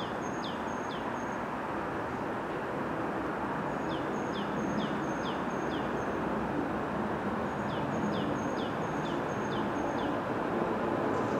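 A small songbird singing three short phrases, each a quick run of high, falling notes, over a steady low rumble of background noise that slowly grows louder.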